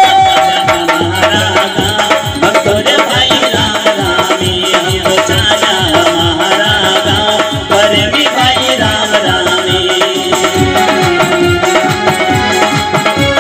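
Live Nimadi folk bhajan music: a quick, steady hand-drum beat under a held melody line, played between sung verses.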